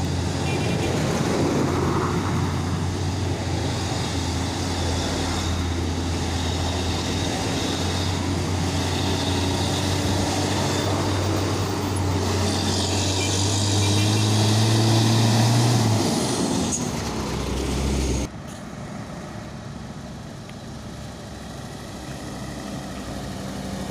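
Heavy diesel trucks passing close by, their engines running steadily with a low drone. A little past the middle the note climbs and grows louder as one truck goes by close, then it fades. Near the end the sound drops abruptly to the quieter hum of trucks further off.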